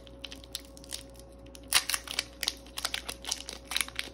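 A foil Pokémon TCG booster pack wrapper is torn open and crinkled by hand: a run of irregular crackles, with one sharp, loud crinkle a little under two seconds in.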